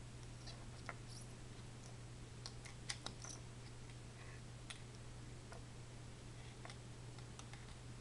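Faint scattered clicks and ticks of small red plastic wire connectors being handled and pushed together as a drone battery's plug is joined to a lead, the loudest two clicks coming about three seconds in. A steady low hum runs underneath.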